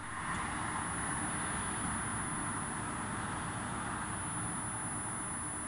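DC rapid charger running a CHAdeMO charge at about 108 A: a steady, even whoosh of its cooling fans with a faint low hum.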